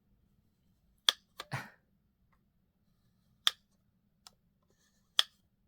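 Sharp plastic clicks from the twist-top mechanism of a Labubu figure pendant as the top is turned to change its eyes. Three loud clicks come about two seconds apart, with a few softer ones in between.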